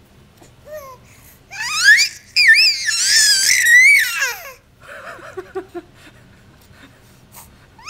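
Baby squealing: a run of very high-pitched, gliding shrieks lasting about three seconds, starting about a second and a half in. It is followed by a few soft, low coos.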